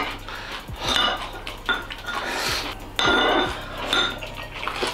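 Wooden chopsticks knocking and scraping against a ceramic bowl while eating, a run of light irregular clinks.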